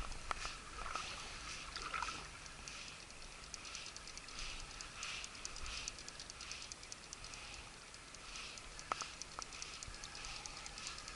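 Spinning reel being cranked as a lure is retrieved: a faint, steady, quick ticking, with two sharp clicks about nine seconds in.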